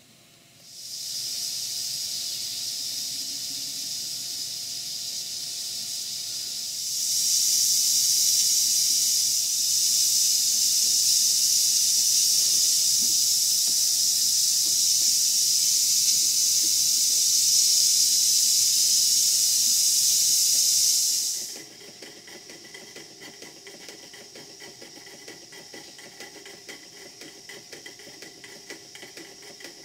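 Steam hissing steadily out of the open drain valve of a brass displacement lubricator on a live-steam model engine plant as it is emptied of condensate and oil; the hiss grows louder about seven seconds in and cuts off suddenly about two-thirds of the way through. After that, the model steam engines run quietly with a fast, light beat.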